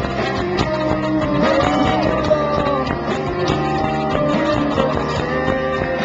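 Rock band playing live, loud electric guitar over drums, heard from within the audience.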